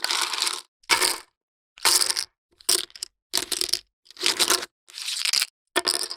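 Poker chips clattering and clicking against each other in a series of short bursts with brief silences between them, about eight in all, turning into a longer continuous rattle near the end.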